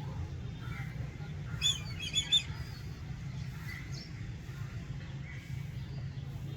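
Black kite calling: a quick run of about four short, high, sharp calls about two seconds in, over a steady low background rumble.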